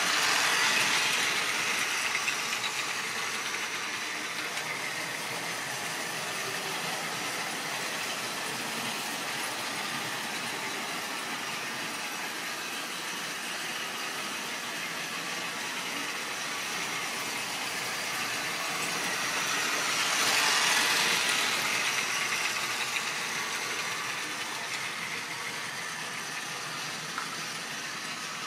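Model railway train running on its track: a steady rattling whir of motor and wheels on the rails. It swells louder twice, about a second in and again around twenty seconds in.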